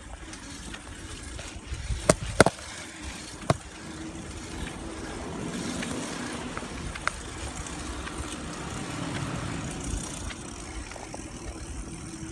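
Bicycle riding over pavement: steady tyre rolling noise and wind rumble on the microphone. A few sharp knocks or rattles come around two seconds in and again near three and a half seconds, and a faint steady hum runs through the second half.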